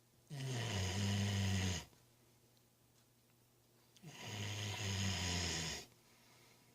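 Snoring: two long, low snores, each about a second and a half, about four seconds apart.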